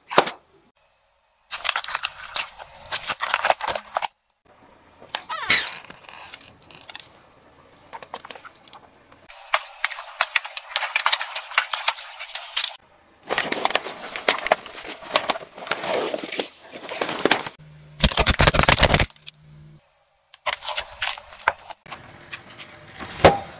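A car tyre rolling over and crushing balloons filled with water beads and water, in several short bouts of crackling and sharp pops, with silent gaps between them. A sharp crack comes just after the start, a loud dense burst of crackling about 18 seconds in, and a single sharp pop near the end.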